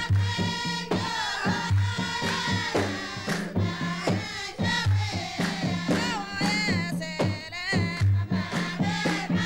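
Traditional Dhofari sawt saylam music: voices singing together over kasir drums and handclapping. A low drum stroke falls about once a second.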